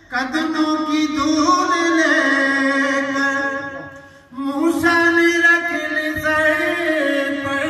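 A man chanting a devotional recitation unaccompanied, in long held, wavering notes: two sung phrases with a short breath about four seconds in.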